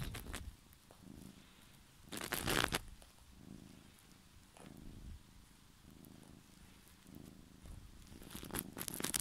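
Domestic cat purring close to the microphone, the purr swelling and fading with each breath every second or two. Loud rustling breaks in briefly about two seconds in and again near the end.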